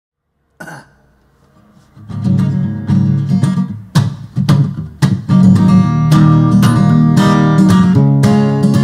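A brief sound about half a second in, then from about two seconds an acoustic guitar strummed in a rhythmic chord pattern, the instrumental intro to a country song, fuller and steadier after about five seconds.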